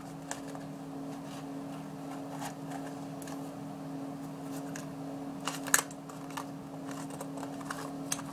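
Scissors snipping and cutting a door opening into a homemade dollhouse wall: scattered small clicks of the blades, with a louder pair of snips about five and a half seconds in, over a steady low hum.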